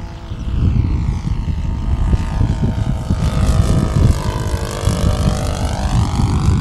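The 150-size model engine of a radio-controlled scale monoplane running at speed in a low flyby. It grows louder toward a peak about four seconds in, then eases off as the plane passes. Gusty wind rumbles on the microphone underneath.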